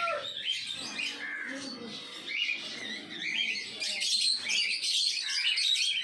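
Rose-ringed parakeet calling: a quick, continuous run of short, high chirps and squawks.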